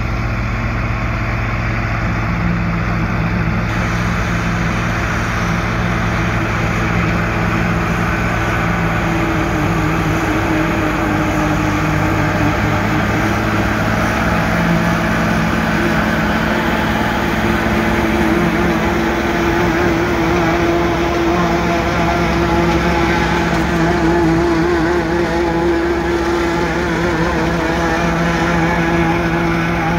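John Deere 4450 tractor's six-cylinder diesel running steadily under load, driving a John Deere 3970 forage chopper as it picks up and chops hay, with a constant whir from the chopper. There is a slight shift in tone about four seconds in, and it holds steady after that.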